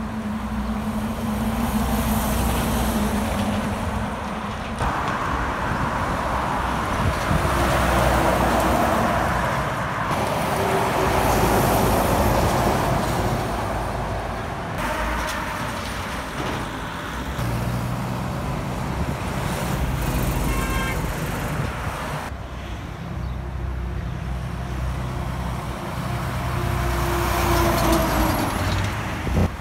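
Heavy diesel trucks and trailers passing on a highway: engines running and tyres on the road, each pass swelling and fading. The sound changes suddenly several times where the footage cuts from one pass to the next.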